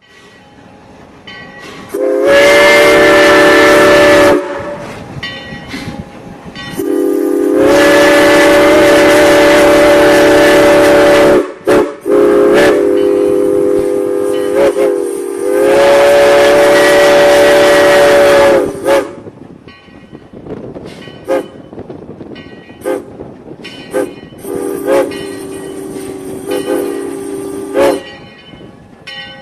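Locomotive horn sounding a multi-note chord in the grade-crossing pattern: long, long, short, long. A fainter blast comes near the end, with sharp knocks and rail clatter in the gaps.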